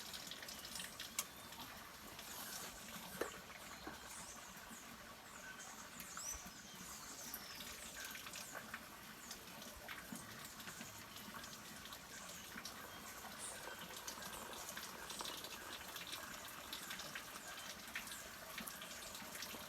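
Faint trickling and splashing water, with scattered short high chirps and a few light clicks.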